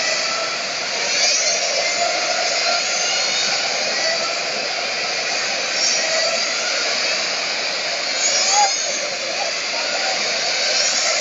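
Small radio-controlled cars' electric motors whining around a track, their pitch rising and falling as they speed up and slow down, over a steady reverberant hall din.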